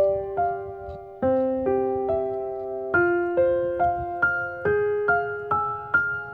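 Background music: a gentle solo piano melody, single struck notes about two a second, each ringing and fading.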